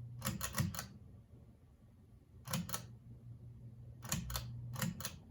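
Clusters of short, sharp clicks from a Casablanca ceiling fan's controls being switched through speed and direction settings to set the fan running in reverse, over a faint steady low hum.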